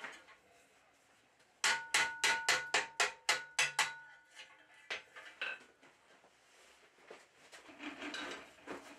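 A hand hammer tapping steel in a quick run of about a dozen light blows, four to five a second, the metal ringing at steady pitches under them. A couple of lone knocks and some handling noise follow.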